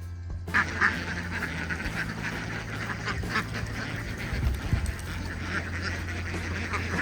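A flock of ducks quacking, many calls overlapping, starting suddenly about half a second in.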